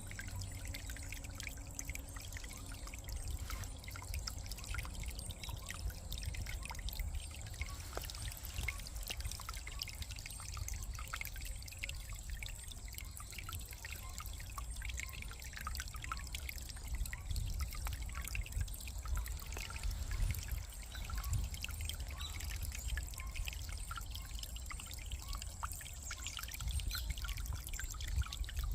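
A small brook running over stones: steady trickling and pouring water with many small splashes.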